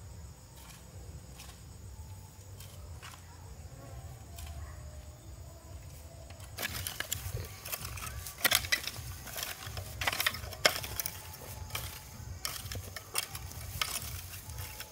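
Faint, evenly spaced knocks of a hoe chopping into dry soil; about six and a half seconds in, a much louder steel rake starts scraping and clinking through stony soil in repeated strokes.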